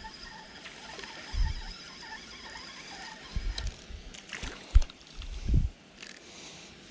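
A handful of short, dull, low thumps and knocks over a faint steady background. The sharpest and loudest comes a little before five seconds in, and a longer one follows soon after.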